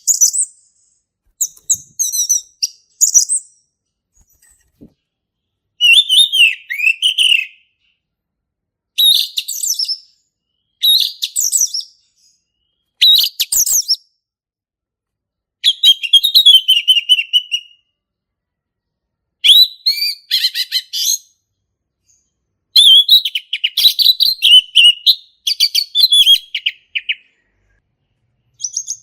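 Male orange-headed thrush singing in its loud, open 'ngeplong' style: short phrases of rapid, varied high whistles and chirps, each lasting a second or a few, separated by pauses of one to two seconds.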